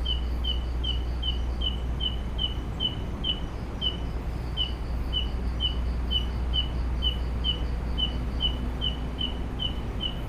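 A steady train of short, high chirps at one pitch, about two to three a second, from an unseen calling animal, heard as a jingling 'kerincing-kerincing'. A low steady rumble runs under it.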